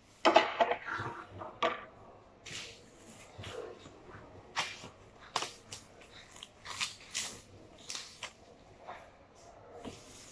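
Wrapping paper rustling and crinkling in irregular bursts as the paper and its roll are handled, loudest in the first couple of seconds.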